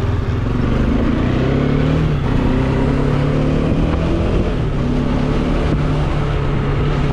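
Bajaj Dominar 400's single-cylinder engine running under way, its note rising about a second in and then holding steady.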